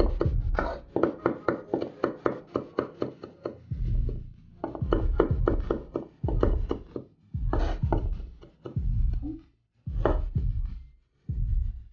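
Chef's knife chopping parsley on a wooden cutting board: quick sharp knocks, about four or five a second, for the first few seconds. Then come slower, drawn-out cutting strokes, about one a second.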